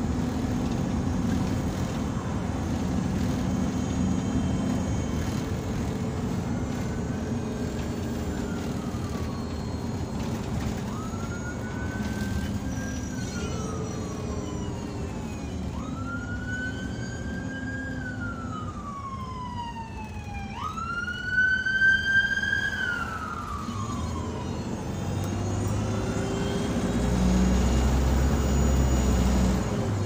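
An emergency vehicle's siren wailing in repeated sweeps, each rising quickly and falling away over about four seconds, growing louder to a peak just past the middle and then fading. Under it the bus's engine drones steadily, and it grows louder and deeper near the end.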